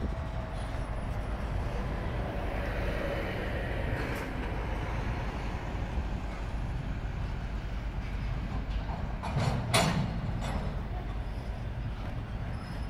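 Double-stack intermodal well cars rolling past: a steady rumble of steel wheels on the rails, with a faint squeal in the first few seconds and one sharp metallic clank about ten seconds in.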